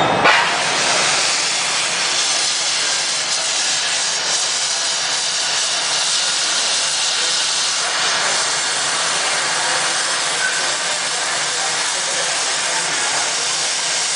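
Handheld glassworking gas torch burning with a steady, even hiss as its flame is played on hot glass. A short sharp knock comes just after the start.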